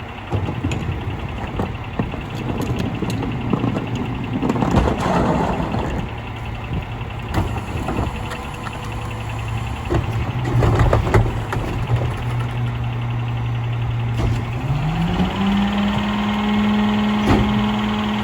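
Mack LR McNeilus rear-loader garbage truck's diesel engine idling, with clattering and knocks over it. About 15 seconds in, the engine speeds up and holds at the higher speed.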